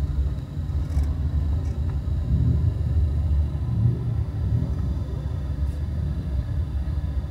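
A steady low rumble that wavers in strength throughout.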